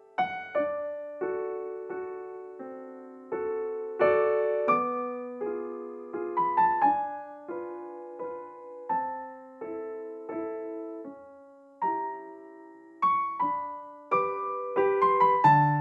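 Background piano music: single notes and chords struck one after another and left to ring out, with a few quicker runs of notes.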